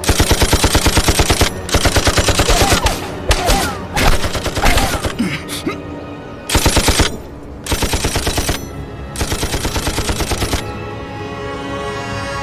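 Machine-gun fire in rapid bursts of about ten rounds a second, five bursts with scattered single shots between them, over background music. The firing stops near the end.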